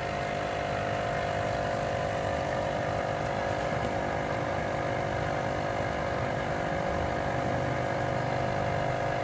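Steady machine hum with several held tones, even and unchanging throughout.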